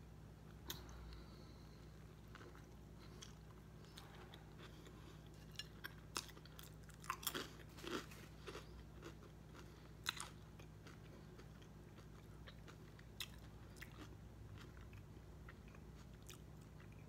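Faint close-up chewing of a soft, untoasted sub sandwich, with scattered wet mouth clicks and smacks that come thickest between about five and ten seconds in.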